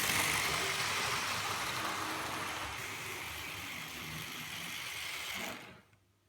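Tri-ang Hornby model locomotives running on the layout: a steady whir and rattle of small electric motors and wheels on track, slowly getting quieter, then cutting off suddenly about five and a half seconds in.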